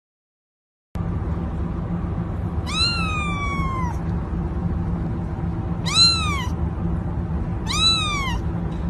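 Cat meowing three times. The first meow is long and slides downward; the next two are shorter. Under them runs a steady low hum.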